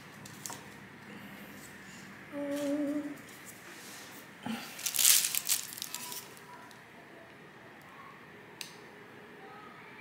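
A person hums a short, wavering note for under a second, about two and a half seconds in. About five seconds in comes a brief, loud hissy rustle, and there are a few faint clicks.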